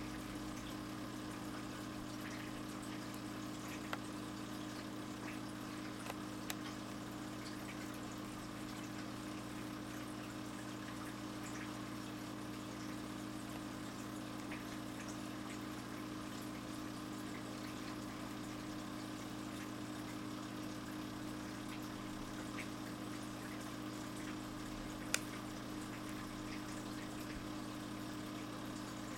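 Aquarium filter pump running: a steady hum with water trickling and circulating, and a few faint ticks, the sharpest about 25 seconds in.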